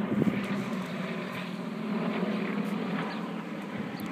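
Formation of aircraft passing overhead, their engines making a steady hum with a low tone, slightly louder about two seconds in and then fading.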